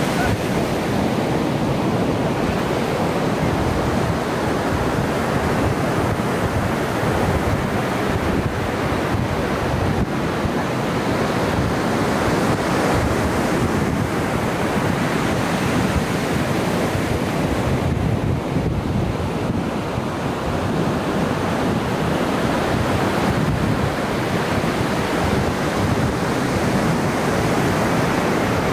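Pacific Ocean surf washing onto the beach in a steady, continuous wash, with wind rumbling on the microphone.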